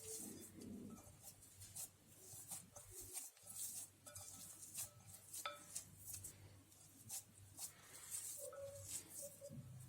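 Faint, scattered small clicks and soft scrapes of gofio dough being mixed by hand in a bowl.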